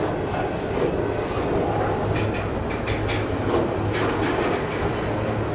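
Double-stack intermodal freight train's well cars rolling past close by: a steady rumble of steel wheels on the rails with a constant low hum, and a few sharp clicks about two to four seconds in.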